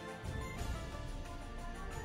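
Background music: sustained instrumental notes, with a deeper bass coming in about a quarter of a second in.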